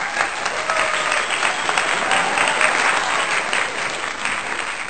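Crowd applauding: dense, steady clapping with a few faint voices among the clappers.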